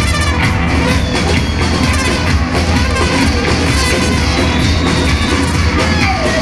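Live noise music: a loud, dense, unbroken wall of distorted noise over a heavy steady low rumble, with drifting tones and no regular beat.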